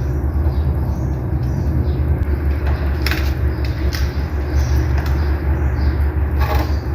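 Steady low machine hum over a broad rushing noise, with a couple of short clicks or knocks, one about three seconds in and one near the end.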